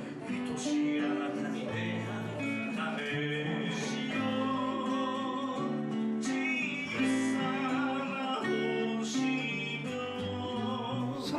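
Live duo performing a song on two guitars, a nylon-string acoustic guitar and an archtop guitar through a small amp, with a man singing into the microphone.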